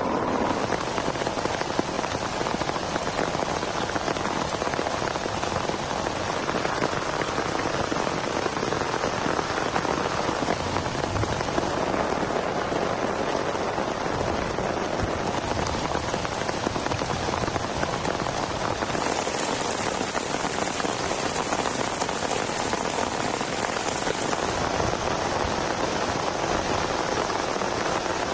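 Heavy rain falling steadily, an even dense hiss of drops striking surfaces. About two-thirds of the way in it takes on a sharper, hissier edge.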